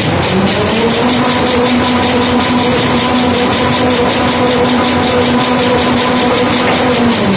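JL-L2200 kitchen cleaning wipe roll production machine running as it winds a roll. It makes a steady mechanical clatter with a fast, even ticking. A motor hum rises in pitch just after the start, holds steady, and cuts off near the end.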